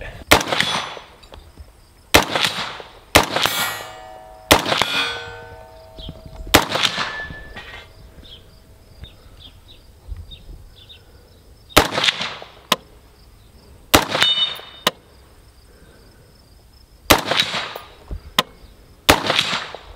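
About eleven single rifle shots from a 16-inch 5.56 IWI Zion-15 AR-15 fitted with a muzzle brake, spaced unevenly a second or more apart. Several shots are followed by a short metallic ring.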